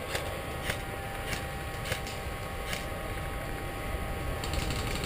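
Steady low rumble and hiss from a GoPro camera's microphone as it moves through brush, with a few faint, irregularly spaced sharp clicks.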